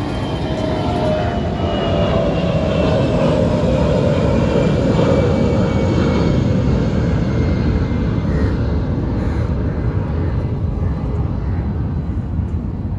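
Aircraft passing overhead: a loud, steady engine rumble whose pitch falls slowly as it goes by, fading a little near the end.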